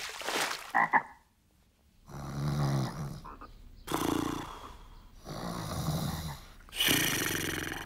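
A sleeping cartoon man snoring loudly: about four slow, rasping snores, roughly one every one and a half seconds, starting about two seconds in.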